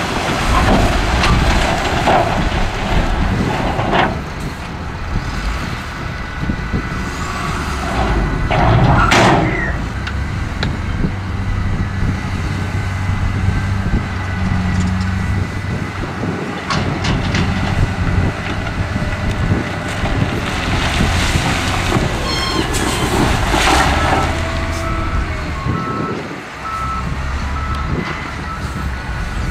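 Diesel engines of a wheel loader and a dump truck running steadily, with a few sharp hisses of air like air-brake releases. Near the end, a reversing alarm sounds in short, evenly spaced beeps.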